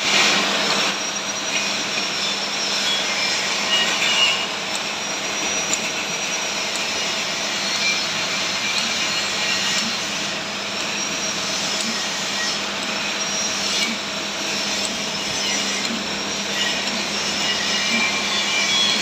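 Lanting-moulding machine running steadily with a constant motor hum. A high whine rises and falls every few seconds.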